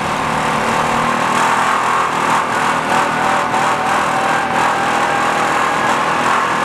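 Side-by-side utility vehicle's engine running steadily as it drives, a constant drone with a faint whine over it.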